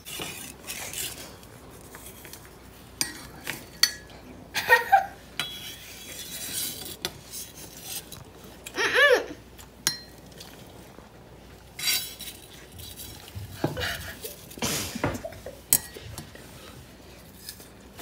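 Steel kitchen knife tapping and scraping on a bamboo cutting board as diced apple is pushed into a ceramic mug, giving scattered clicks, knocks and clinks. A short wordless vocal sound, rising then falling, comes about nine seconds in.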